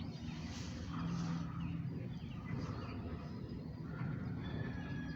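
Steady low background rumble; near the end a distant rooster begins one long drawn-out crow.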